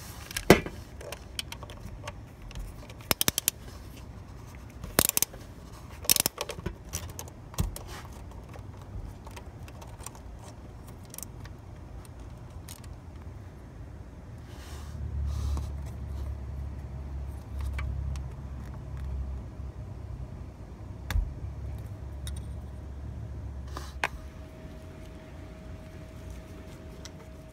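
Scattered sharp metallic clicks and clinks of a ratchet, socket and extension working the bolt that holds a car's MAP sensor, bunched in the first several seconds. After that come softer handling and rubbing noises.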